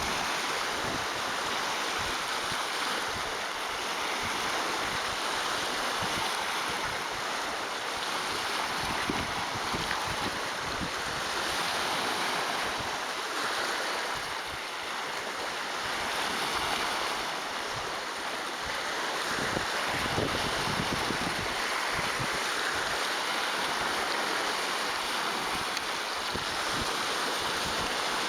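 Lake Superior waves breaking on shoreline rocks: a steady rushing surf that swells and eases every few seconds.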